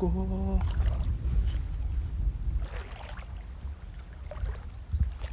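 Wind buffeting the microphone as a steady low rumble, with faint sloshing of shallow sea water around wading legs. A man's held sung note ends about half a second in.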